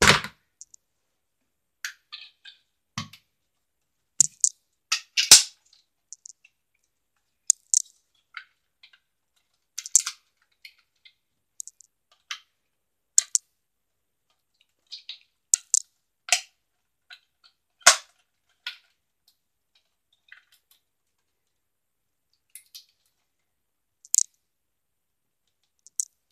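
Sharp clicks and clacks of a hard-plastic NERF blaster being handled and its attachments snapped on, scattered irregularly with short gaps, some coming in quick pairs.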